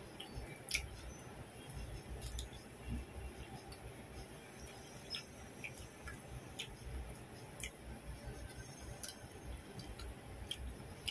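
Close-miked eating of raw coriander leaves: quiet chewing with sharp little clicks, irregular, roughly one every second or so, from the mouth and from stems snapped between the fingers.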